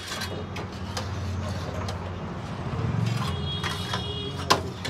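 Metal baking trays and a long-handled oven peel clicking and knocking at a brick bread oven, with a louder knock near the end, over a steady low hum.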